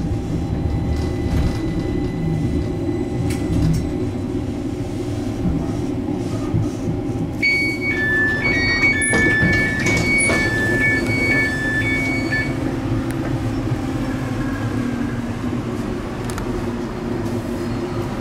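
Stadler Citylink tram-train running, heard from the passenger cabin as a steady low rumble. In the middle, repeated electronic beeps alternate between two pitches for about five seconds.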